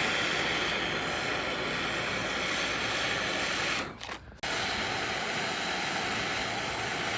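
Steady rushing hiss of a gas geyser running with hot water flowing through it. It breaks off for about half a second near the middle, then carries on.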